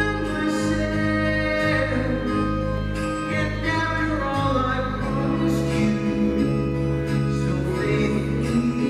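Live band music with singing: sustained chords with held vocal harmonies, the harmony shifting about five seconds in.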